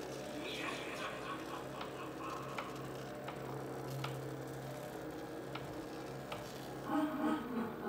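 Motorised Halloween decorations running: a small-motor hum with a regular tick about every three quarters of a second as the homemade elevator car moves and the animated reaper rises. A louder, wavering sound comes in about seven seconds in.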